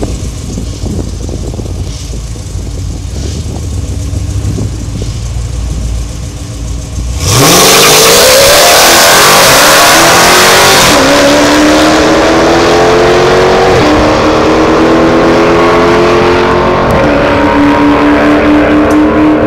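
Dodge Challenger drag car idling at the starting line with a low rumble, then launching at full throttle about seven seconds in. The engine note climbs and drops back at each of several upshifts as the car pulls away down the strip.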